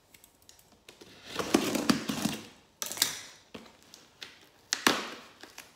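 Brown packing tape being picked at and peeled off a cardboard box, with the cardboard rustling and scraping under the hands. A longer rasping stretch comes about a second and a half in, then sharper rips and small knocks.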